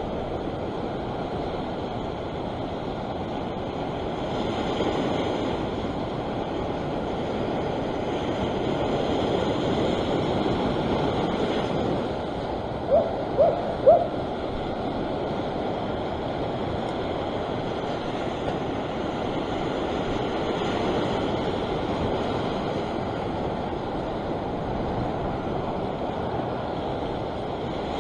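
Ocean surf washing steadily against a rock ledge. About halfway through, three short pitched calls come in quick succession.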